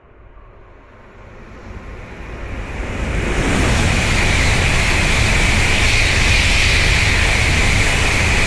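Nozomi Shinkansen bullet train passing a station platform at speed without stopping. Its rushing noise builds over the first three seconds, then holds loud and steady as the cars go by.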